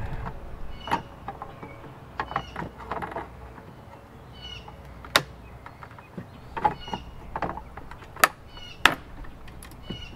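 Tongue-and-groove pliers gripping and prying press-fit connectors out of a circuit board: scattered sharp clicks and creaks of metal jaws on the connector and board. The loudest clicks come about halfway through and twice near the end.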